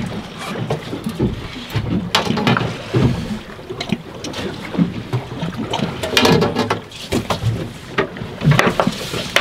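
Water slapping against a small fishing boat's hull, with a low rumble of wind on the microphone and irregular sharp knocks against the boat.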